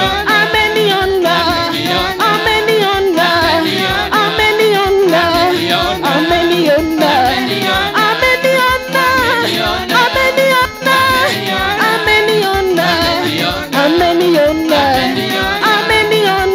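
Live gospel praise and worship music: singers through hand microphones, led by a woman, over an electronic keyboard with a steady beat.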